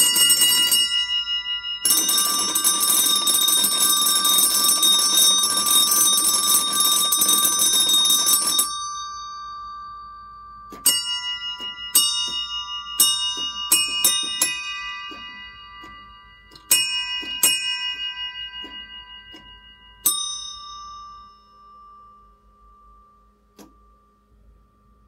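Mechanically played metal bells: several ring together in a rapid continuous trill that breaks off briefly about a second in, resumes, and stops about a third of the way through. Then single strikes follow at uneven intervals, some in quick pairs, each ringing on and fading, the last dying away near the end.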